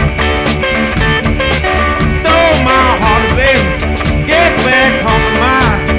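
Background rock song with a steady beat, guitar and a male singing voice.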